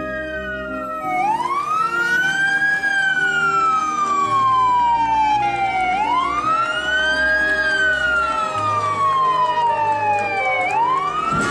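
Fire truck siren wailing. Each cycle rises quickly and then falls slowly, repeating about every five seconds, with faint held musical notes underneath.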